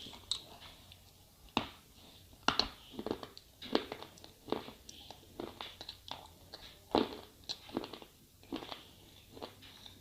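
Slate pencil being bitten and chewed: a string of sharp, irregular crunches and cracks, one or two a second, loudest about one and a half, two and a half and seven seconds in.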